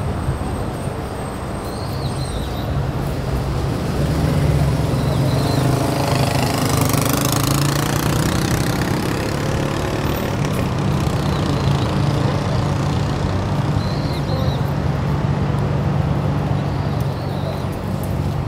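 Street traffic: a vehicle engine running steadily at a low pitch, with another vehicle passing by about seven seconds in, its sound swelling and fading.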